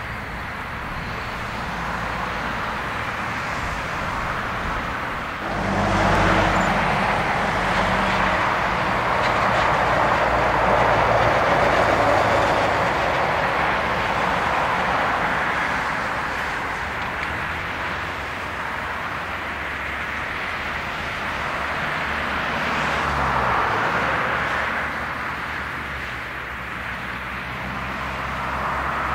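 Jet airliner engine noise: a steady rushing sound that jumps up abruptly about five and a half seconds in, holds loud for several seconds, then eases off.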